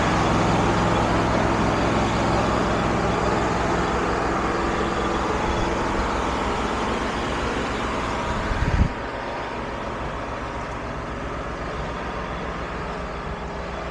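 An engine running steadily; about nine seconds in there is a short thump, after which the sound continues quieter and duller.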